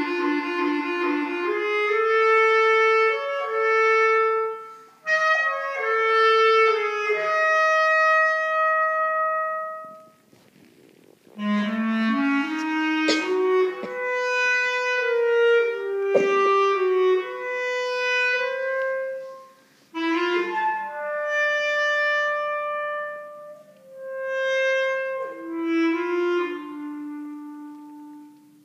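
Unaccompanied solo bass clarinet playing in its upper register: phrases of held notes and quick stepwise runs, broken by short pauses about ten seconds in and near twenty seconds. A couple of sharp clicks cut through the playing in the middle.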